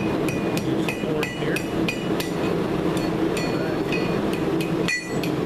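Hand hammer striking hot square steel bar stock on the horn of an anvil, about three ringing blows a second, over a steady low rumble.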